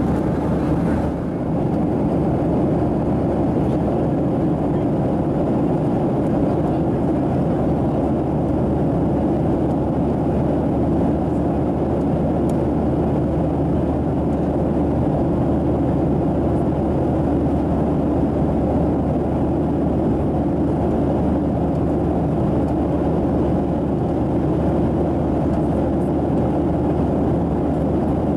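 Steady in-flight cabin noise inside a Boeing 737-700 airliner: the even roar of its CFM56-7B turbofan engines and the airflow past the fuselage, heard from a passenger seat.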